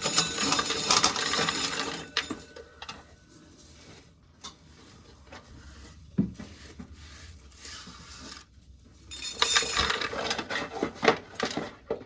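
Dry shelled corn kernels clattering and clinking against a hard container. There is a dense rattle for about the first two seconds, then scattered single clicks, then another dense rattle near the end.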